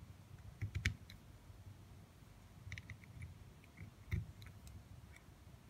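Jumper wire pins being pushed into the contacts of a plastic solderless breadboard: small clicks and light scraping ticks, the sharpest click about a second in and another just after four seconds.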